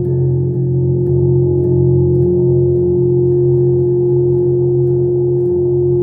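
Sustained ambient musical drone: a steady low hum with a held higher tone above it, ringing like a gong or singing bowl, with no beat and no change in pitch.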